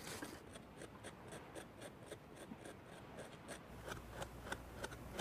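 Faint scraping of a hand tool in dirt, excavating around fossil dinosaur eggs. Quick, even strokes come about four a second, then turn irregular after about three and a half seconds.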